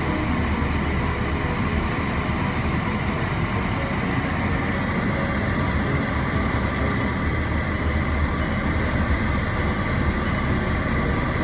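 Suzuki Jimny JB23W's small turbocharged three-cylinder engine idling steadily in Park, heard from inside the cabin.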